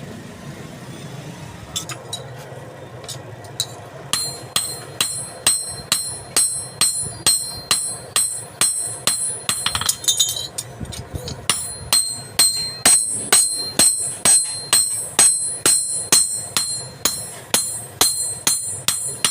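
Hammer blows on steel, a few scattered taps first and then a steady run of strikes about two a second. Each blow rings out brightly, like a bell. There is a short break near the middle.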